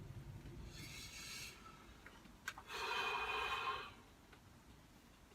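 Cutlery scraping against a food tray: a brief high scrape about a second in, a click, then a louder scrape lasting about a second.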